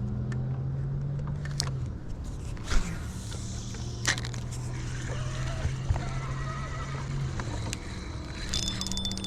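A steady low engine hum that holds a constant pitch, dipping slightly about two seconds in, with a few faint clicks and knocks over it.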